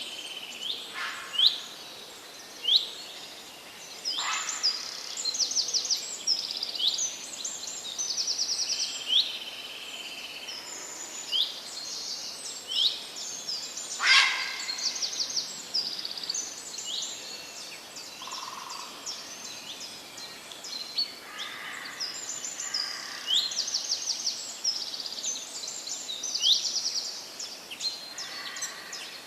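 Several wild songbirds chirping and singing, with many short rising chirps and quick trills overlapping, and a louder, sharper call about halfway through.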